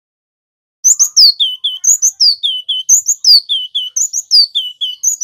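Male cinereous tit singing: starting about a second in, the same quick phrase repeats about once a second, five times. Each phrase is a high note sliding down, then two short lower notes.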